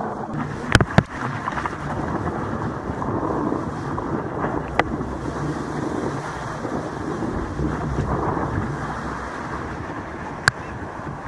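Muffled rushing and splashing of surf water around a stand-up paddleboard riding a small wave, with wind buffeting the microphone. A few sharp clicks cut through, two about a second in and one near the end.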